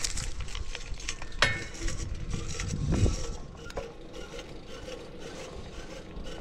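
Bicycle drivetrain running with its chain pulled too tight, all slack taken out, giving a steady mechanical noise while riding. A sharp click comes about one and a half seconds in, and a louder low rush follows around three seconds in.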